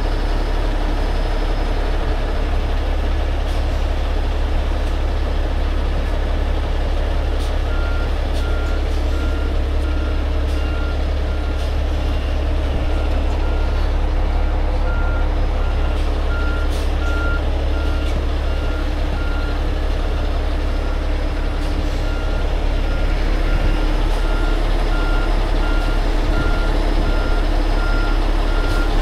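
Heavy rotator tow truck's diesel engine running steadily, with a truck's reversing alarm beeping in an even pulse from about eight seconds in, pausing briefly around twenty seconds.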